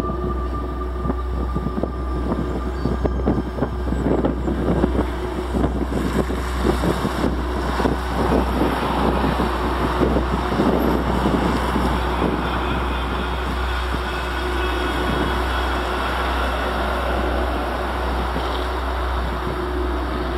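Dark ambient noise soundscape: a constant low drone under dense crackling noise and a couple of steady hums. The crackle grows rougher about four seconds in and eases into a smoother hiss after about twelve seconds.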